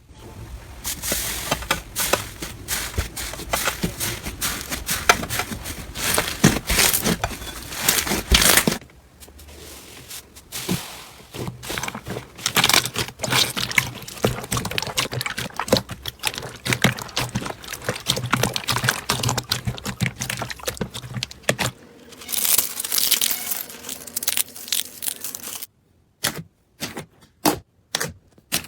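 Slime being worked and stretched, making a dense crackling and popping, with a brief quieter lull about a third of the way in and sparser separate clicks near the end.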